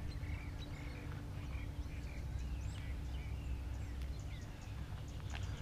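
Small birds chirping, with many short whistled calls scattered throughout, over a low steady background rumble.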